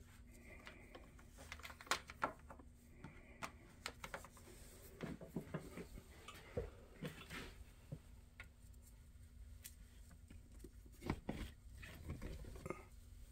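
Scattered clicks and knocks of a charger's power cord and three-prong plug being handled, with a cluster of clicks near the end as the plug is pushed into a wall outlet. A faint steady hum runs underneath.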